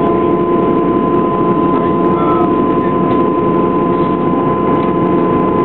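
Steady cabin noise aboard a Boeing Jetfoil under way: the drone of its gas-turbine-driven waterjet propulsion with a constant high whine over a dense rumble.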